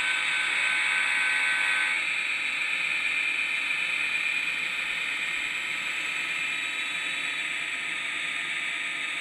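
Sound decoder in an Athearn Ready-to-Roll HO-scale SD40-2 model playing diesel engine sound through its small speaker as the locomotive runs. The sound is a steady drone with little bass, and it cuts off suddenly near the end.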